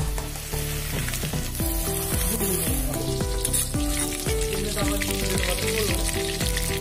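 Chicken pakoras deep-frying in hot oil in an iron kadai: a steady sizzle, with a spatula stirring and turning them. Background music with a regular beat plays over it.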